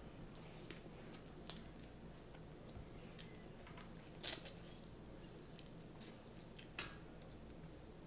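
Snow crab legs being cracked and eaten: scattered sharp shell cracks and snaps, the loudest a cluster about four seconds in, with quiet chewing and wet squishing between them.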